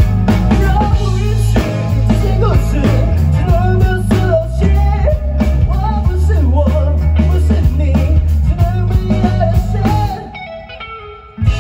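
Live rock band playing loudly: electric guitar, electric bass and drum kit. About ten seconds in the band suddenly drops out, leaving a short quieter break with a few ringing notes, then comes crashing back in.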